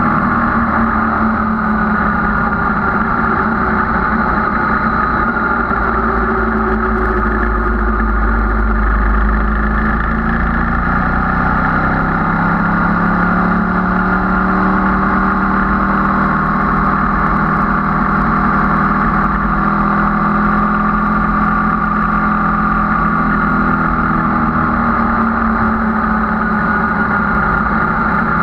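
Sport motorcycle engine running at a steady road speed, heard through a heavy rush of wind over the microphone; the engine note shifts in pitch about twelve seconds in and again near the end as the speed changes.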